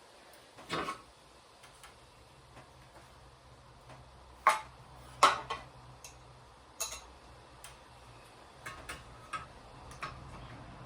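Scattered sharp clicks and knocks from hardware and tools being handled while a ceiling fan is installed, the loudest two about halfway through. A faint low hum sets in about two seconds in.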